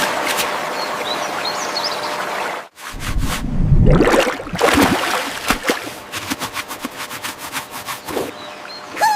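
Stream water running steadily, with a few faint bird chirps. After a brief break come a heavy low thud, then a long run of quick light taps and clicks, and a short falling bird chirp at the very end.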